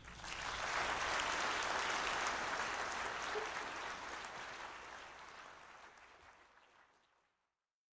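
Audience applauding at the end of a band piece, building up within the first second, then fading out until it is gone about seven seconds in.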